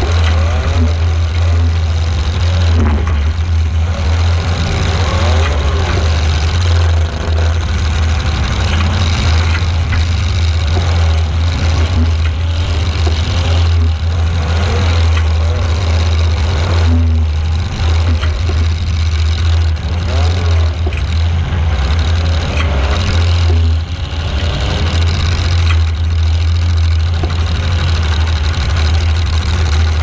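Demolition derby car's engine running loud from on board, revving up and falling back again and again as the car drives around the arena, with a heavy low drone throughout and a few short knocks.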